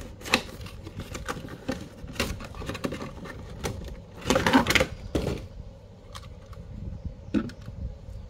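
Hands handling a toy car's cardboard box with its clear plastic window: a run of clicks, scrapes and rustles, loudest in a dense burst of rustling about four to five seconds in, then a few sparse clicks.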